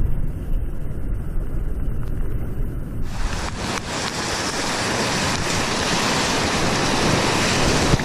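Whitewater of a flood-swollen river rushing around a kayak, with wind buffeting the microphone: a low, muffled rumble at first, then about three seconds in a loud, full hiss of breaking water as the boat drives into the waves.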